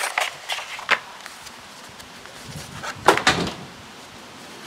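Paper and cloth handling: a manila envelope and a sheet of speaker grille cloth backed with white paper rustle and slide as the cloth is laid on a wooden speaker baffle. There are several quick rustles in the first second, and a louder rustle a little after three seconds.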